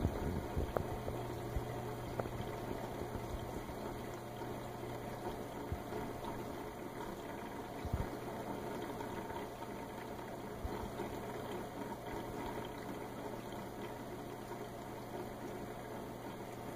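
Reef aquarium equipment running: a steady churning of circulating water over a constant low pump hum, with a single soft knock about eight seconds in.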